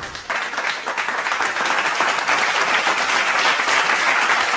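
Applause from many people clapping, growing a little louder over the first two seconds and then holding steady.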